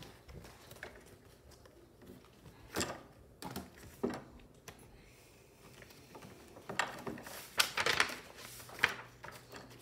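Sheet music being handled on an upright piano's music stand: scattered paper rustles and light knocks, busiest in the last few seconds. No piano is played.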